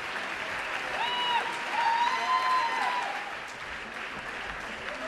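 Theatre audience applauding steadily, with a couple of short voices calling out over the clapping about one and two seconds in.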